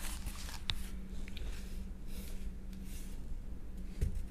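A corrugated cardboard mask is handled and shifted about, giving soft rustles and scrapes over a steady low room hum. There is a brief click a little under a second in and a short knock near the end.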